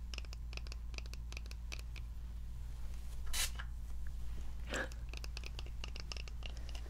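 A pump spray bottle of hair-lightening spray misting once about halfway through, a short sharp hiss, among soft clicks from handling the bottle.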